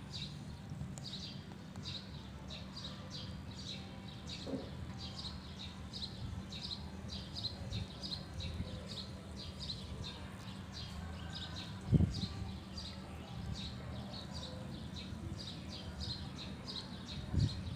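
Bird chirping over and over in short high notes, about two to three a second, over a steady low rumble, with a thump about twelve seconds in and another near the end.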